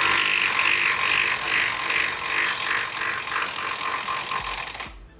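A loud machine running, with a pulsing rhythm that gets faster, then cuts off suddenly near the end.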